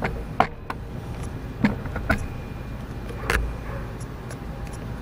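Steady low rumble of road traffic, with several sharp clicks and knocks scattered through it.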